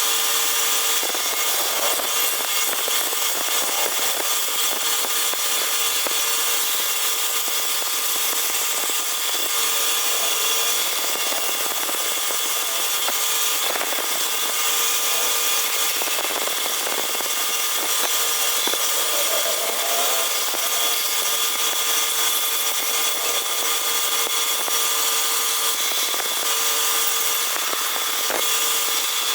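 Woodworking power tool running steadily and cutting wood, a continuous motor whine over the rasp of the cut.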